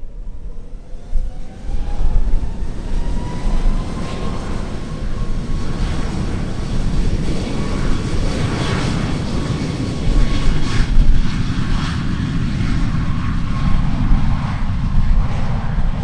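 Jet airliner taking off: its engines spool up to takeoff thrust, with a whine rising in pitch over the first few seconds and then holding steady over a loud rumble. Near the end the higher part of the sound fades.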